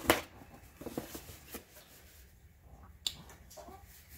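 A cardboard subscription box being opened and its packaging handled: a few sharp clicks and taps, the loudest just after the start and others about one, one and a half and three seconds in, with light rustling between.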